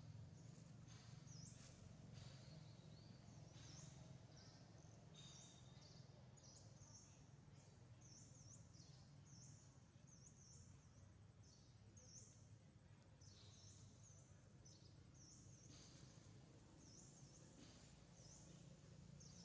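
Faint chirping of small birds: short high chirps repeated every second or so over a low, steady background hum.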